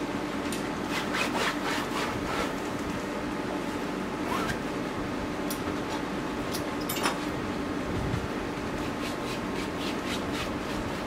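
A rag and bare hand rubbing and smearing oil paint across a stretched canvas in many short, irregular scraping strokes. A steady low hum runs underneath.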